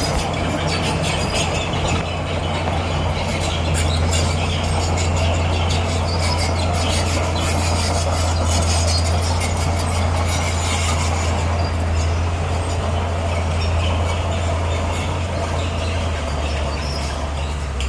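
Crawler bulldozer's diesel engine running steadily under load, with rapid clanking from its steel tracks.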